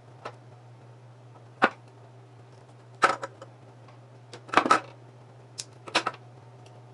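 Sharp clicks and snaps of hand crimpers squeezing an insulated wire terminal, with small clatter of the tool and parts being handled on a wooden desk. About half a dozen separate clicks, the loudest around three and four and a half seconds in, over a steady low hum.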